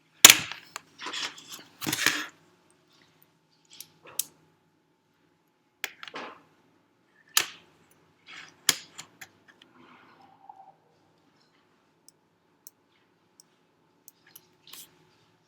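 Irregular sharp clicks and knocks of hard objects being handled, loudest in a quick cluster over the first two seconds, then single clicks every second or two, with a faint short tone near the middle.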